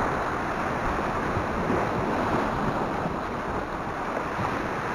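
Sea swell washing and foaming over the shoreline rocks, a steady rushing surf, with wind buffeting the microphone.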